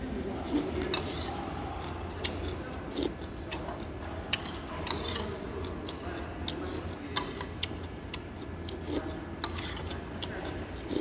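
Metal spoon clinking and scraping against a soup bowl while soup is eaten: a scatter of short, sharp clicks at irregular intervals, over a steady low hum.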